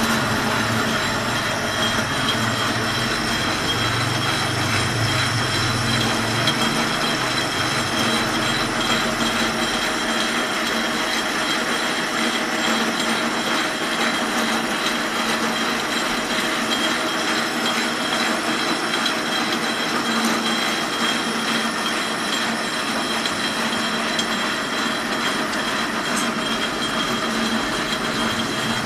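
Geared-head metal lathe running, its gearbox giving a steady whine of several fixed tones over a rushing mechanical noise; a low rumble fades out about ten seconds in.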